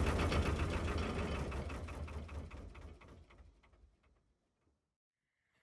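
Narrowboat's diesel engine running with a steady, rapid beat, fading out over about four seconds to silence.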